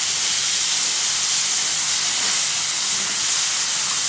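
Chopped tomatoes and onions frying in hot oil in a kadai on a high flame, with a loud, steady sizzle as they are stirred with a wooden spatula.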